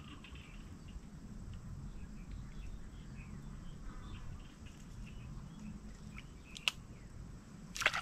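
Faint outdoor ambience: scattered bird chirps over a low steady rumble, with a single sharp click about two-thirds of the way through and a short burst of louder clicks and rustles at the very end as the plants are handled.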